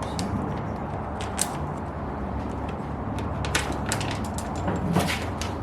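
Scattered light clicks and taps as a wickerbill is held against the spoiler and rivets are fitted, over a steady low hum.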